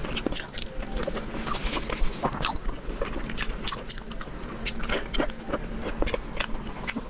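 Close-miked eating sounds: irregular biting and chewing of braised pork belly, with many small wet clicks and crackles.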